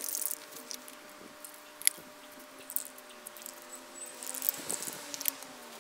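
Short hissing spurts and ticks from an aerosol spray paint can being sprayed, the sharpest tick about two seconds in and a run of spurts near the end, over faint background music.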